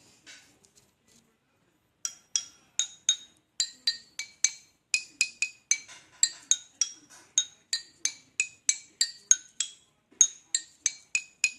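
Pieces of rubberwood charcoal knocked together, a quick run of sharp, glassy, ringing clinks about three a second, starting about two seconds in. The bright ring is the sign of well-carbonised, good-quality charcoal.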